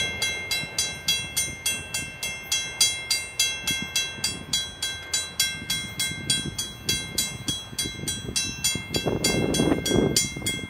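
Level crossing warning bell ringing steadily at about three strokes a second while the crossing gate arms rise back up, the crossing clearing after a train has passed. A low rushing noise swells briefly near the end.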